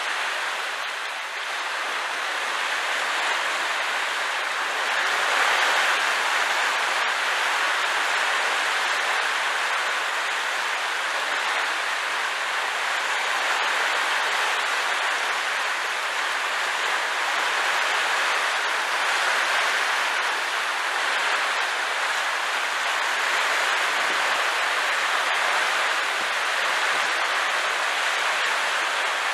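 Water rushing and churning into a sea lock chamber at the foot of the closed gates as the lock levels before opening. It makes a steady rushing noise that swells about five seconds in.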